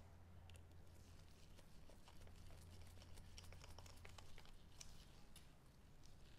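Near silence: room tone with a steady low hum and faint, scattered small clicks and rustles.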